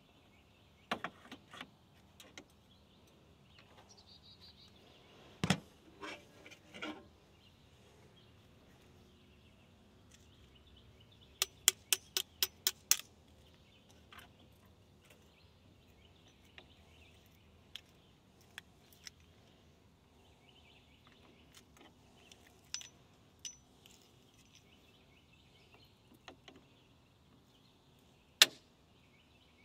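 Metal hand tools clinking and clicking on a garden tractor's battery terminal while the terminal nut is being loosened. There are scattered light clicks, a quick run of about seven sharp clicks about twelve seconds in, and one sharp click near the end.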